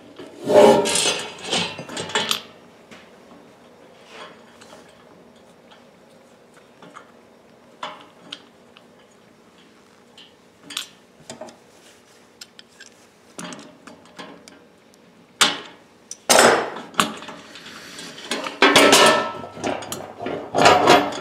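Metal clattering and clinking as a washer, wheel and cotter pin are worked onto the steel rear axle of a welding cart, with sparse light clicks in between. Near the end come several louder clatters as the sheet-metal cart base is lifted and turned over on the wooden bench.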